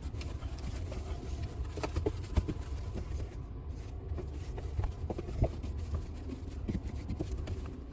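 Scattered light knocks and clicks from handling parts inside a refrigerator, the loudest about two and a half seconds in and again about five and a half seconds in, over a steady low rumble.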